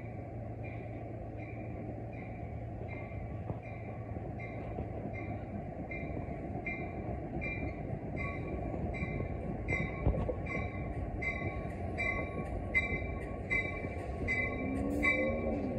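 Railroad grade-crossing bell ringing at a steady beat, a little more than once a second, over the rumble of a train that grows louder as it approaches.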